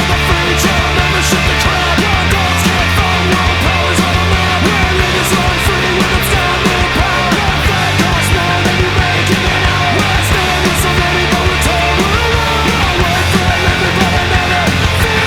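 Loud punk-rock style music with distorted guitars and a fast, driving drum beat.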